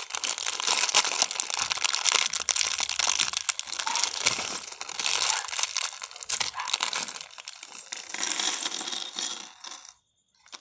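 A LEGO set's plastic packaging is being opened: continuous crinkling and tearing, with many small hard clicks of plastic pieces. It stops suddenly near the end.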